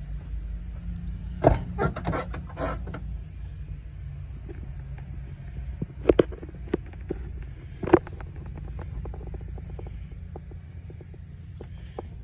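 Heavy truck cab door being opened: a quick run of latch and handle clicks about a second and a half in, then a few sharp knocks and lighter taps as someone climbs into the cab, over a steady low rumble.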